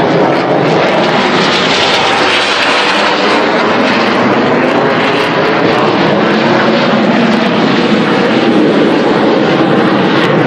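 Loud, steady jet noise from a Blue Angels F/A-18 Hornet flying overhead.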